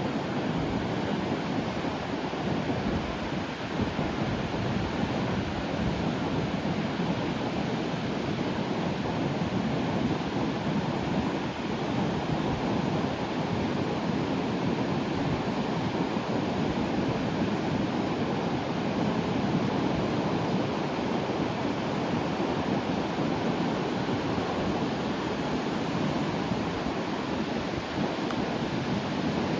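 Surf breaking and washing on a shore, a steady rushing wash of sea noise with no single wave standing out, with some wind on the microphone.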